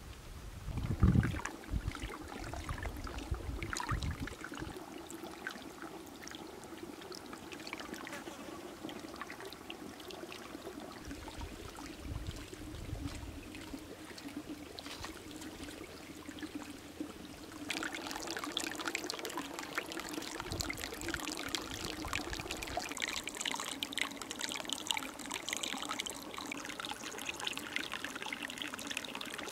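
Hot spring water trickling and pouring steadily into a concrete soaking pool, getting louder a little past halfway. A few low thumps come in the first few seconds, the loudest about a second in.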